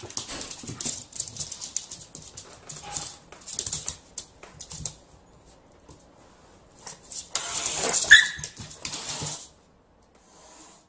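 A dog vocalising and scuffling while play-fighting with a cat: irregular clattering and short noisy bursts, loudest about eight seconds in, before it goes quiet near the end.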